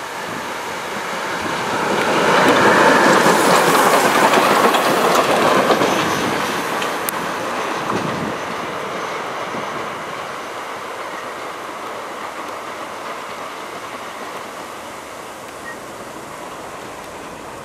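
Soviet L-class 2-10-0 steam locomotive L-3297 running on the track: a loud rushing hiss of steam and wheel noise swells a few seconds in, then fades to a fainter steady running sound.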